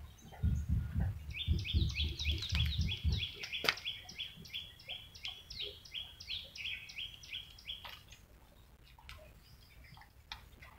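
A bird chirping in a fast, even series of short calls, about four or five a second, for six seconds or so before stopping. Soft low thumps sound during the first three seconds.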